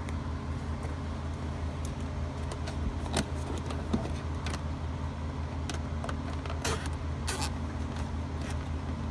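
Hand-handling noises of a camera wire being zip-tied to a fog-light wiring harness: a few scattered clicks and rattles of plastic and cable. They come over a steady low hum.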